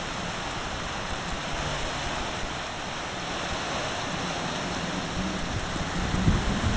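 Tropical-storm wind and rain making a steady rushing noise; near the end, gusts buffet the microphone with low rumbles.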